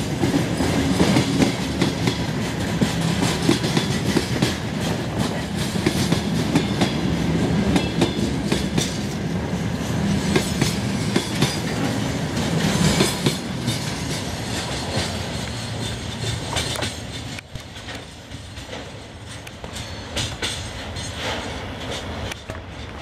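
Freight train of covered boxcars rolling past close by: a steady rumble of wheels on rail with many sharp clicks and knocks. Past the middle the sound fades as the last wagon goes by and the train draws away.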